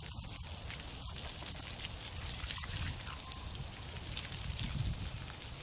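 Water spraying steadily onto dirt and mud, an even patter, as the ground is wetted to make a mud wallow for pigs.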